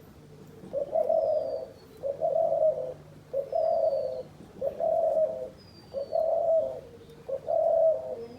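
Dove cooing: six steady, evenly spaced coos, each just under a second long, about one every 1.3 s. Faint, short, high whistles slide downward in the background.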